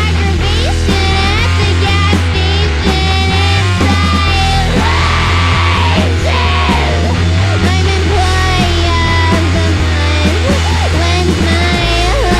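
Live rock band playing loud, with a heavy bass held low and steady under the guitars, shifting to a new note near the end.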